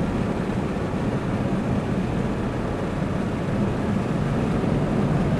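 Steady road and engine noise heard inside a moving car's cabin: a continuous low rumble with no distinct events.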